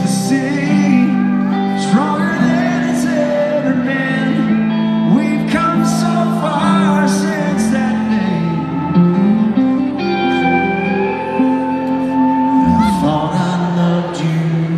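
Live country band playing a slow instrumental passage, a lead electric guitar carrying the melody with bent notes over the backing band.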